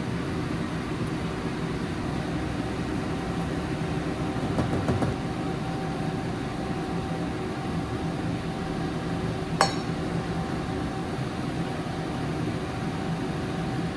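Kitchen range hood fan running steadily over stir-frying, with a single sharp utensil clink a little past the middle.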